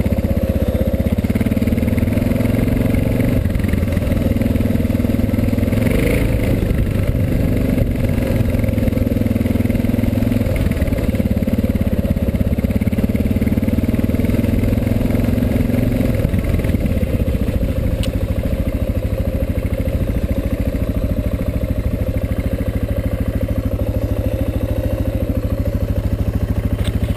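Suzuki DR650's single-cylinder four-stroke engine running under varying throttle while riding a trail, then settling to a steady idle a little after halfway through.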